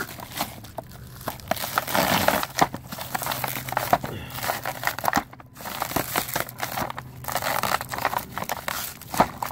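Thin black plastic bag crinkling and rustling as hands pull it off a clear plastic blister pack, in an irregular run of crackles with a few sharper spikes.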